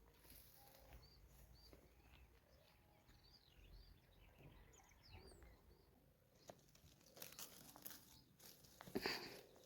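Faint bird chirping: short arched chirps repeated every half second or so, then a busier run of calls. In the second half come scattered sharp crackling clicks, loudest about nine seconds in.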